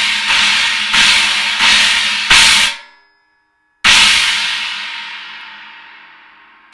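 Synergy Zircon cymbal struck repeatedly, about every two-thirds of a second, its wash building, then cut off suddenly. After a short silence it is struck once more and left to ring, fading slowly.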